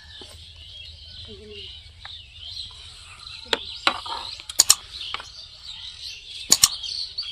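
Birds chirping steadily in the background, broken by a few sharp clicks or knocks, the loudest sounds, coming in quick pairs around the middle and near the end.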